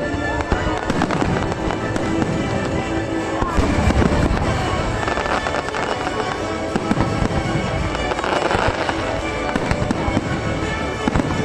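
Fireworks exploding in rapid, overlapping bangs over music playing throughout.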